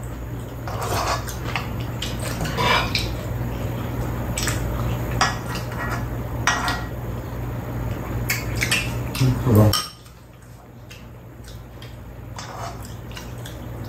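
Metal spoons and chopsticks clinking and scraping against a frying pan and small bowls as food is scooped up, in scattered short clicks. A steady low hum sits underneath and cuts off suddenly about ten seconds in.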